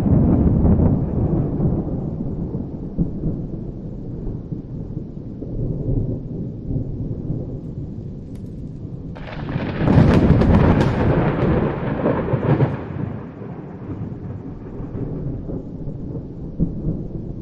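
Thunder in a storm: a low rumble fades over the first several seconds. About nine seconds in comes a sudden sharp clap that rolls on for about four seconds before dying away.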